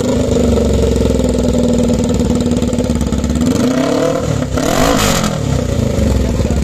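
Suzuki GS500's parallel-twin engine running at a steady idle through a bare exhaust pipe with no silencer fitted. About three and a half seconds in it is revved once, rising and dropping back to idle.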